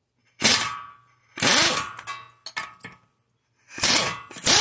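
Pneumatic impact wrench loosening the cylinder head bolts of a small lawn-tractor engine, run in several short bursts of under a second each, the last one falling in pitch as it winds down.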